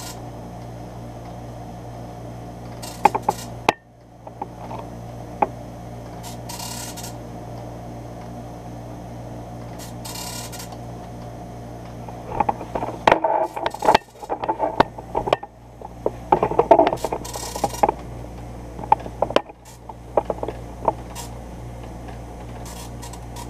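Epson MX-80 III dot matrix printer printing, with bursts of rapid print-head chatter and clicks from the carriage and paper feed over a steady hum, mostly in the second half. The output is wrong, which the owner puts down to a DIP switch forcing an automatic line feed with each carriage return.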